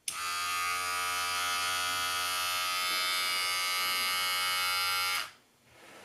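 BaByliss for Men Super Clipper 7475U cordless hair clipper switched on and running steadily for about five seconds, then switched off.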